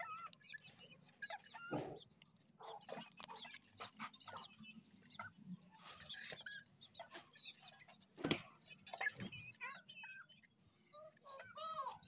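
A caged flock of young Aseel chickens clucking and chirping in short, scattered calls. Two sharp knocks come about two seconds and eight seconds in.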